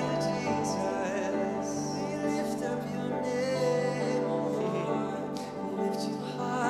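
Slow live worship music from a band: long-held keyboard chords with acoustic guitar, and some singing without words.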